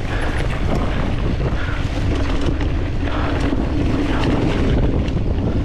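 Wind rushing over the microphone of a mountain bike riding a grassy dirt trail, with the tyres rumbling over the ground and faint clicks and rattles from the bike.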